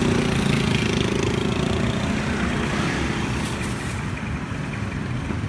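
A motorbike engine running close by, its steady low note fading after the first couple of seconds into general street traffic noise.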